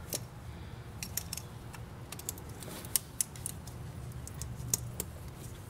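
Small plastic clicks and rattles of an oxygen sensor wiring plug being handled and pushed into its keyed socket, irregular throughout, with a few sharper clicks about three seconds in and again near the end.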